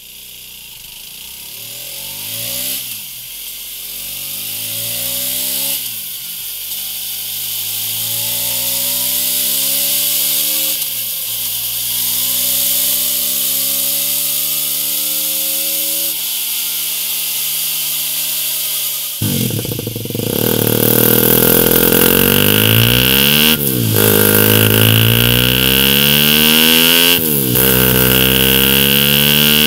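2017 Aprilia RS 125 single-cylinder four-stroke engine pulling hard on a test bench, its pitch climbing and dropping sharply at each upshift, four times through the stock exhaust. About 19 seconds in it cuts to the same engine through a Mivv Delta Race exhaust, clearly louder, climbing through three more shifts with a steady high tone on top.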